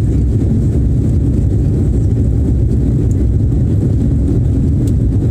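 Steady low rumble of jet engines and rushing air inside the cabin of an Airbus A330-200 climbing after takeoff.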